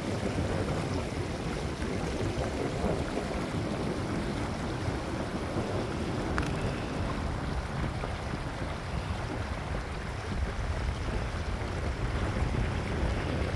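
Wind buffeting the microphone, a steady low rumbling rush.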